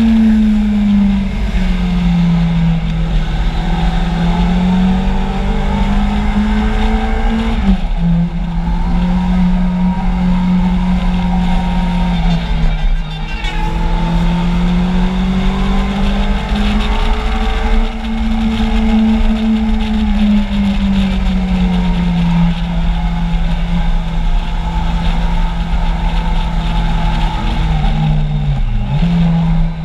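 Kawasaki Z750's inline-four engine running at steady mid revs under way, its pitch slowly rising and falling with the throttle over constant wind noise. The pitch drops suddenly about eight seconds in, as at a gear change.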